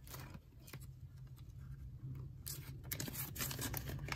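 Faint rustling of paper banknotes being handled, with a few soft taps about two-thirds of the way in.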